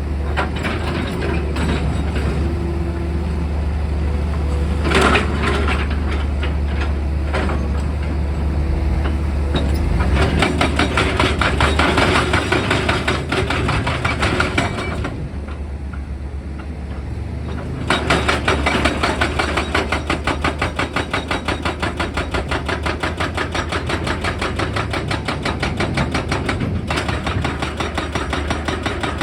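Heavy diesel machinery running steadily, joined by rapid, rhythmic percussive hammering about ten seconds in. The hammering breaks off briefly around the middle, then resumes.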